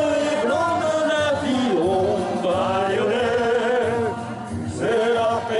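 Male voices singing karaoke into microphones over backing music, amplified through a sound system. The singing dips briefly about four seconds in.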